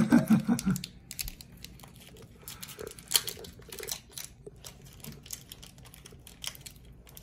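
A brief voice at the start, then a foil Pokémon booster pack wrapper crinkling and crackling in small irregular clicks as it is handled and opened.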